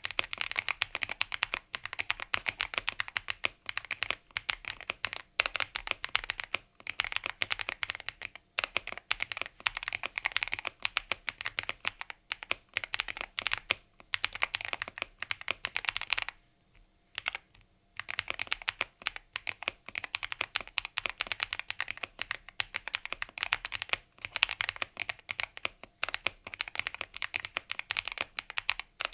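Fast, continuous typing on a Yunzii AL68 mechanical keyboard, with dense clacking keystrokes and a brief pause a little past the middle.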